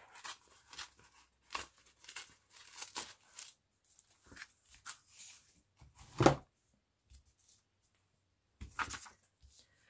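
Paper crackling and tearing as the glued pages of an old children's picture book are pulled apart and handled, in short irregular rustles with one louder crackle about six seconds in.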